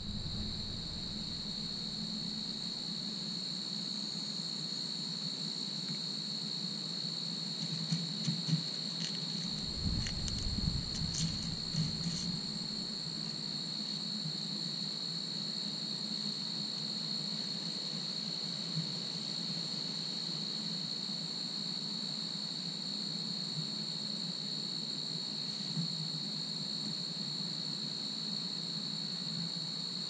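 Steady, unbroken high-pitched trilling of crickets or similar insects, with a low steady hum beneath. About eight to twelve seconds in, a short spell of rustling, clicks and a low rumble from hands working through loose soil.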